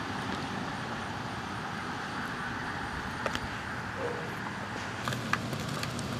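Steady outdoor background hum of distant road traffic, with a few faint clicks a little after halfway and again near the end.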